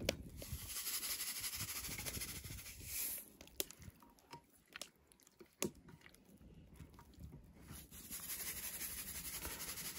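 Coarse sea salt shaken from a shaker onto raw chicken pieces in a glass baking dish, with hands handling the meat: a faint grainy hiss in stretches and a few sharp clicks in between.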